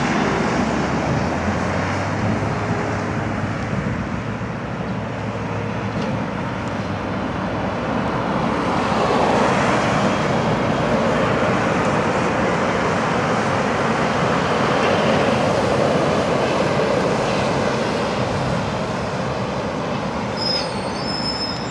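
Road traffic going round a roundabout: cars and lorries passing close, with a rigid livestock lorry and drawbar trailer going by, the noise swelling as it passes about halfway through.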